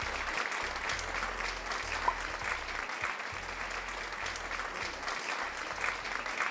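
Crowd applause, many hands clapping steadily. Only the man and the boy are in the picture, so this is an added applause sound effect.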